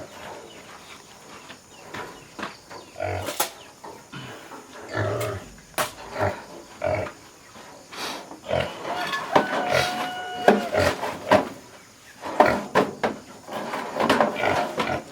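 Philippine native pigs grunting in short low calls, with one longer, higher-pitched cry about ten seconds in. A few sharp knocks are mixed in.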